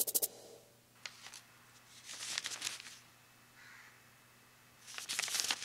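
Sheets of paper rustling as a stack of exam papers is picked up and leafed through: a quick crackle at the start, another about two seconds in, and a third near the end.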